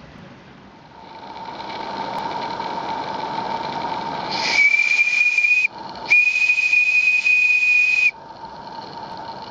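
A miniature live-steam garden railway locomotive built by Merlin Locomotive Works hisses steam, then sounds its steam whistle twice: a blast of about a second, a short gap, then a longer blast of about two seconds. The steam hiss continues after the whistle.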